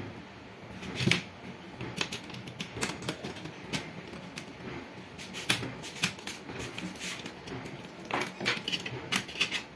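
Irregular clicks, taps and knocks of hands handling the metal chassis and parts of an opened computer, with a louder knock about a second in and a quick run of clicks near the end.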